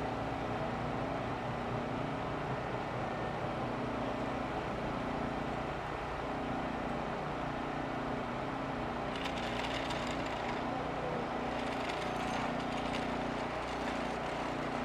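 An engine running steadily at low revs, a low hum with a slightly wavering pitch. A faint hiss joins about nine seconds in.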